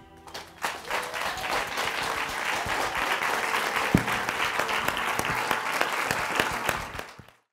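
Audience applauding: the clapping builds over the first second, holds steady, then cuts off abruptly near the end.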